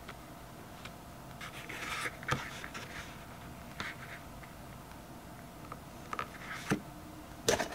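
Faint handling sounds: fingers and nails tapping and rubbing small plastic skincare bottles in a zippered hard-shell case, with a soft scrape about two seconds in and a few light clicks.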